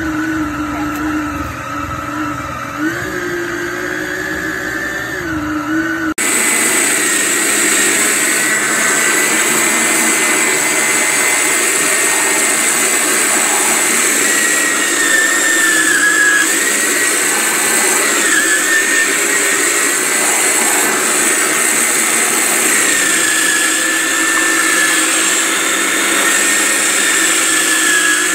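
Yonanas frozen-fruit soft-serve maker's motor running as it grinds frozen fruit into soft serve, a steady whine whose pitch dips now and then. About six seconds in the sound jumps to a different recording of the machine running, brighter and hissier.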